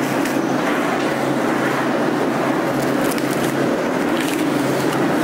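Steady machine noise with a low hum, running at an even level throughout.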